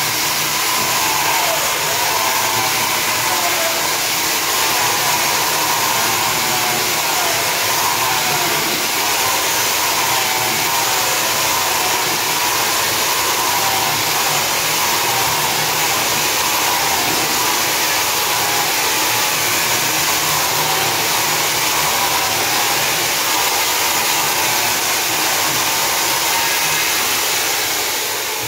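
Handheld electric diamond-blade wall saw cutting into a concrete wall, a steady loud grinding run with a whine that wavers as the blade works in the cut. It eases off near the end.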